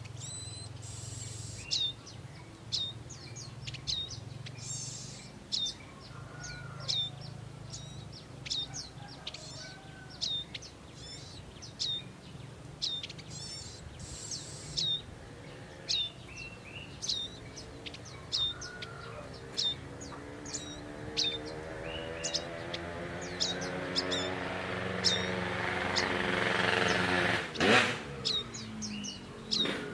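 Prinia (prenjak) calling: a run of sharp, high, down-slurred chirps about once a second, with a few brief hissy bursts. Over the last third a rising hum with several tones builds up, ending in a loud knock near the end.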